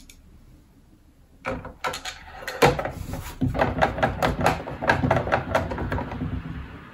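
Hard plastic case parts of an APC Back-UPS being pressed and worked back into place, a rapid run of clicks, creaks and scrapes that starts about a second and a half in.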